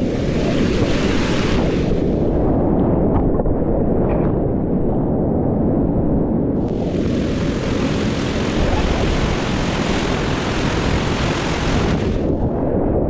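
Whitewater rapids running hard under a kayak: a constant deep rushing roar of fast river water, with a brighter splashing hiss laid over it for the first two seconds and again from about seven to twelve seconds in.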